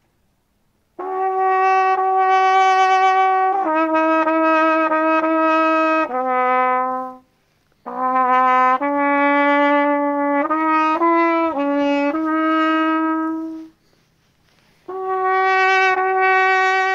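Solo trumpet playing a slow call of long held notes in three phrases, with short pauses between them. The third phrase starts about fifteen seconds in.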